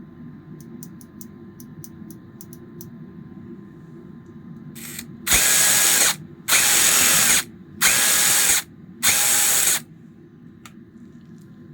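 DeWALT cordless impact wrench run free in four bursts of about a second each, starting about five seconds in, after a few light clicks. It is running on a newly fitted gearbox.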